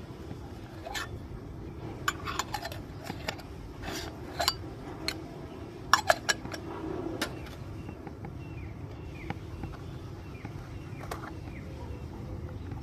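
Miniature stainless-steel toy kitchenware clinking and tapping as it is handled: a string of light metallic clicks, with three sharp clinks about six seconds in, over a steady low hum.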